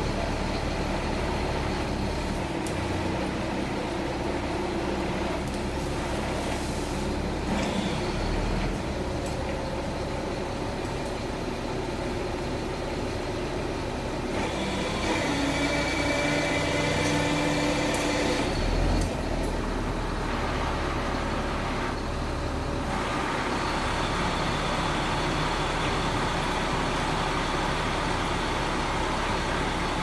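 Heavy truck engine running steadily, most likely the crane truck's diesel working the crane, with a higher whine joining in from about 15 to 19 seconds in.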